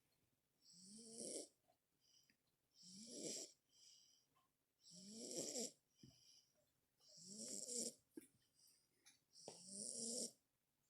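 Faint, regular snoring: five snores about two seconds apart, each swelling into a rasp and then stopping abruptly, with soft breaths between them.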